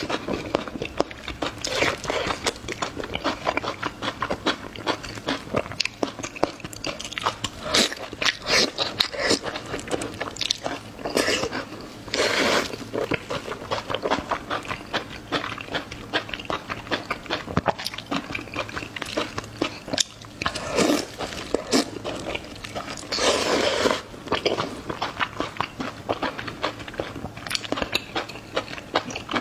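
Close-miked eating: wet chewing, biting and crunching in quick, irregular smacks. There are a few longer, louder bursts, one near the middle and one about three-quarters through.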